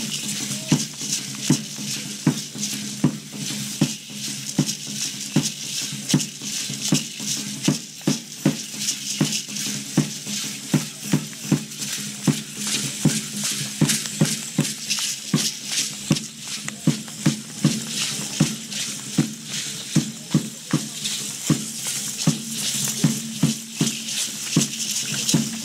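A steady drumbeat, about two beats a second, under the continuous shaking of the dancers' rattles: dance-troupe percussion.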